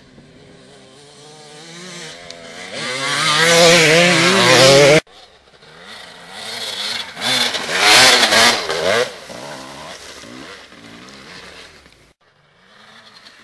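Dirt bike engines at full throttle. First one bike accelerates, its pitch climbing and getting louder until it cuts off suddenly about five seconds in. Then a second bike revs hard in surges as it climbs a snowy gully, peaking and fading away near the end.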